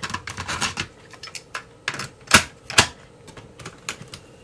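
Irregular plastic clicks and clacks from pressing a portable cassette player's buttons and handling a cassette tape as it is set into a Sony Walkman's deck. The two loudest clacks come about half a second apart, a little past the middle.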